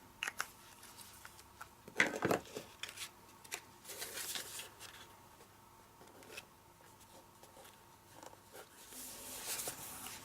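Cardstock and paper being handled on a desk: rustling and sliding with scattered light taps and one louder knock about two seconds in, as a glued layer is put in place.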